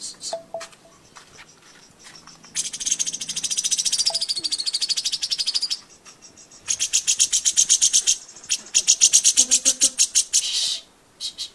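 Cucak jenggot (grey-cheeked bulbul) singing in two long, fast, high trills of rapidly repeated notes, each lasting a few seconds, with a short pause between them.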